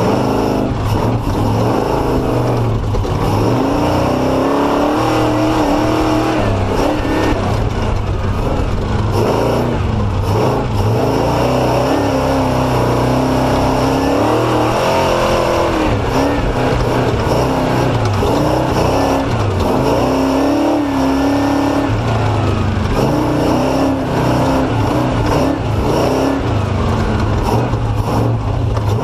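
Off-road race vehicle's engine running hard, its revs rising and falling again and again as it is throttled on and off through slow, tight terrain.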